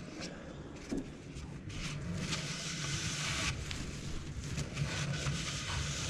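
Stiff starched tarlatan cloth rustling and crackling as it is handled and bunched up for wiping an inked intaglio plate, in uneven bursts that are busiest a couple of seconds in.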